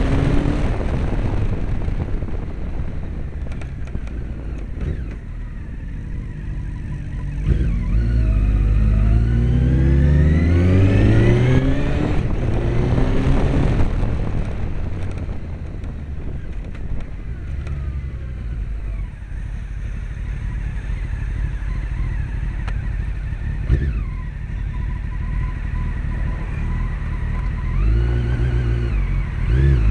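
Honda CBR900RR Fireblade's 918 cc inline-four engine under way, revving up through the gears in several rising steps about eight to fourteen seconds in. It runs lower and steadier after that and picks up again near the end.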